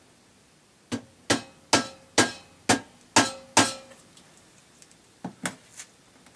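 Metal being struck with a tool: seven sharp, ringing knocks about two a second, followed a little later by three lighter taps.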